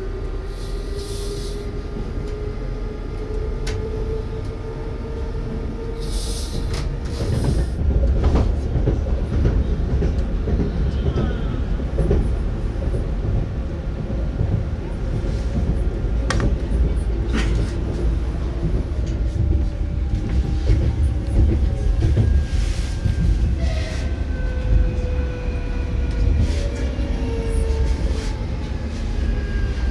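ES2G Lastochka (Siemens Desiro RUS) electric multiple unit running on the line, heard from inside the car: a steady rumble of wheels on rail with scattered rail-joint clicks. Its electric drive's tones rise slowly over the first several seconds, and the rumble grows louder about eight seconds in. The tones slope downward in the last few seconds.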